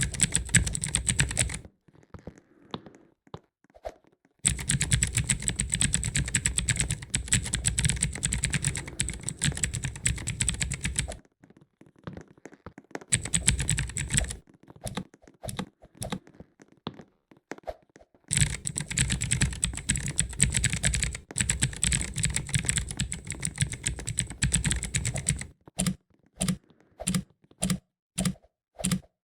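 Mechanical key switches on a keyboard tower clicking in long runs of fast presses, separated by short pauses. Near the end the runs give way to a few single, spaced-out clicks.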